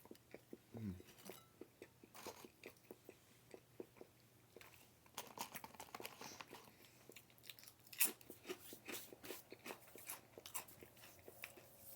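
A person eating: crunchy bites and chewing heard close up, as a run of short crackly clicks that grows busier partway through.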